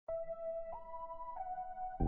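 Background music: three held notes one after another, the second the highest.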